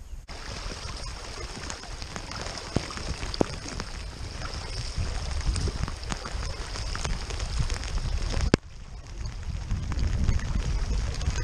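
Heavy rain falling on the river surface, a steady hiss of pattering drops with many sharp ticks of drops striking close to the microphone, and a low rumble underneath. It sets in sharply just after the start, and there is a click and a short dip about eight and a half seconds in before the rain sound resumes.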